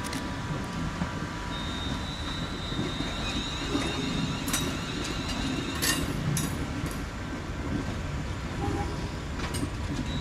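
Class 37 diesel locomotive's English Electric V12 engine rumbling steadily as it creeps in at low speed, its wheels clicking sharply over the points several times, loudest about six seconds in. A thin high squeal comes in about one and a half seconds in and fades after about six seconds.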